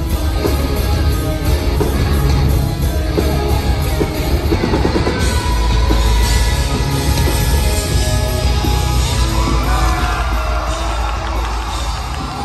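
Live hard rock band playing at full volume through a concert PA: electric bass, guitars and drums, with a voice singing over them.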